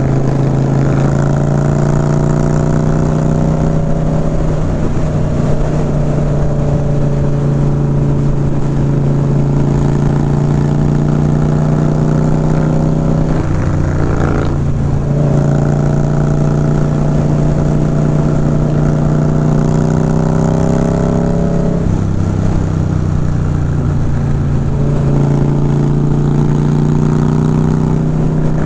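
Motorcycle engine and exhaust at a steady cruise, heard from the rider's seat over wind noise. The engine note changes pitch about halfway through and again about three quarters of the way in.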